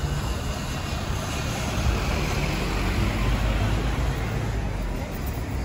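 Street traffic noise: a steady, even hum of road vehicles with a strong low rumble.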